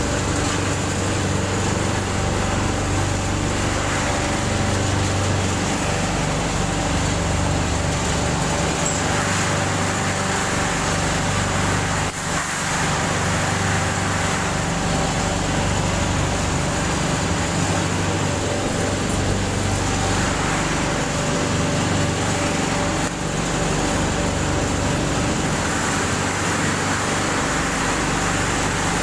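Paper-pulp egg tray making machine running steadily: a constant mechanical hum with a few steady tones, and a hiss that swells every several seconds.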